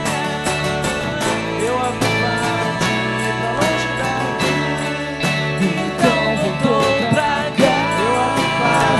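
Live acoustic band music: acoustic guitar and acoustic bass guitar playing, with a steady beat on a snare drum and shaker, and a male voice singing.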